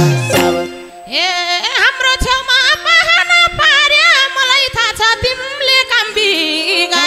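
Instrumental break in a Nepali live dohori: the full band drops out just before a second in, leaving a solo lead melody that slides and wavers in pitch over a single held note, with a few sparse madal drum strokes.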